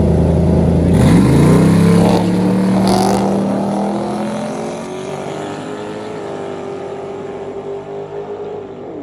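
An old Chevrolet pickup and a Ford Mustang drag racing side by side. The engines are held at high revs on the line, then rev up sharply about a second in as the cars launch. They hold a steady, slowly rising engine note that fades as the cars pull away down the strip.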